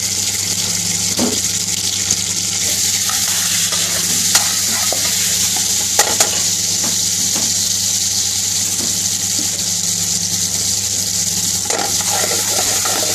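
Oil sizzling steadily in an aluminium frying pan around grilled onion and green pepper pieces, with a metal ladle stirring and clinking against the pan a couple of times. A steady low hum runs underneath.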